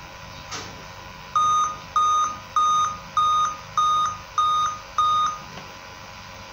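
An electronic beeper sounding seven short, even beeps about 0.6 seconds apart, after a single soft click.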